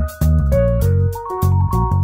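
Background music with a steady drum beat and held melodic notes.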